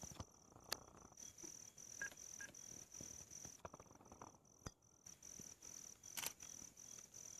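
Near silence except for faint insect chirping: a high, thin note pulsing at an even rate, with a few soft clicks.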